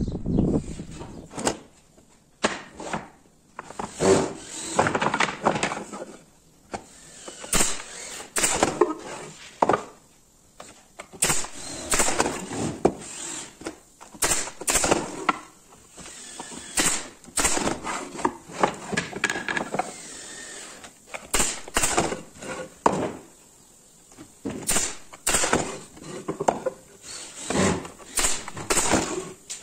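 Pallet-wood boards handled and knocked together on a work surface, with irregular sharp cracks from a nail gun firing into the joints of a wooden frame, and boards scraping as they slide.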